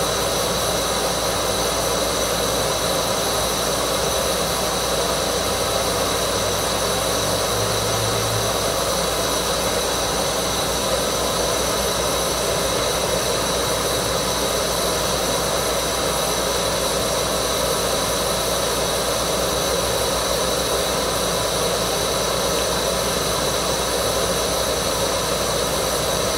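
Gas canister stove burner running at full flame, a steady roar, heating water in a steel USGI canteen cup toward the boil.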